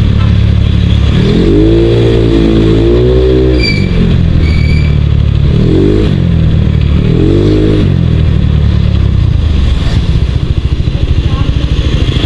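Motorcycle ride: the engine runs steadily under a constant rush of noise. Its note rises and falls several times, and two short high tones sound near the middle.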